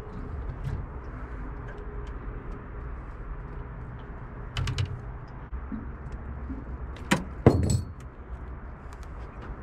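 Handling noise of a landed bream and its metal-hooked lure: rustling with light metallic clicks and jingles. A couple of sharper knocks come about five and seven seconds in.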